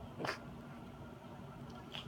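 A mini French bulldog and a cat play-wrestling on a fleece blanket: one short sharp noise about a quarter of a second in and a smaller one near the end, over a faint steady hum.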